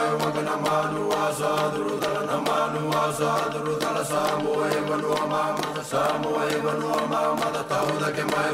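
Background music with a steady low drone and chant-like singing.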